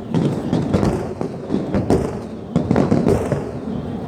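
Aerial fireworks display: shells bursting in quick succession, several sharp bangs a second over a continuous rumble.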